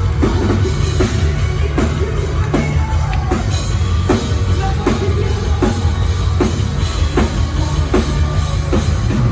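Live rock band playing loud, with heavy bass and guitars under drums hitting a steady beat about once every three-quarters of a second.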